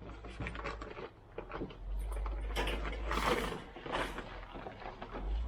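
Irregular clicks, knocks and rattles of hand tools and parts being handled while a boat's interior panels are taken apart, louder with a scraping rustle in the middle.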